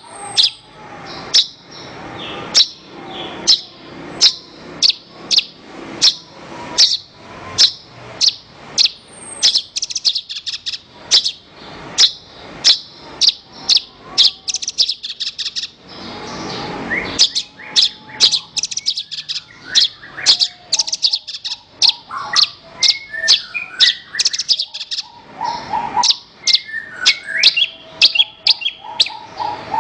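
Javan bush lark (branjangan) singing: a long series of sharp, high chirps, about two a second, growing faster and denser in the second half with warbled phrases mixed in.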